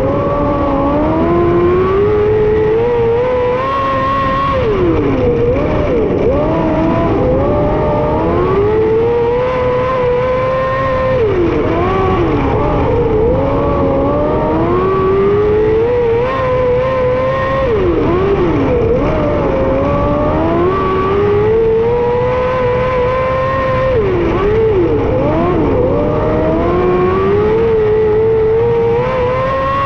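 600cc micro sprint car's motorcycle engine at racing speed, heard onboard: its pitch climbs steadily along each straight, then drops sharply as the throttle is lifted for the turn, about every six seconds.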